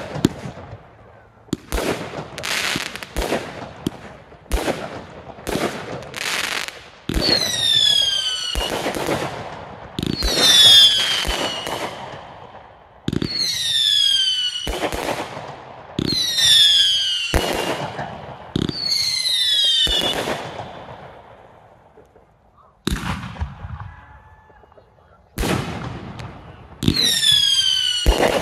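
Fireworks display: a rapid string of sharp bangs and crackles from bursting shells, mixed with whistling fireworks whose shrill whistles fall in pitch over a second or so each, about seven times.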